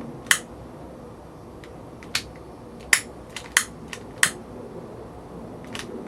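About six sharp, short clicks at uneven intervals over a faint steady hiss, from small hard objects being handled.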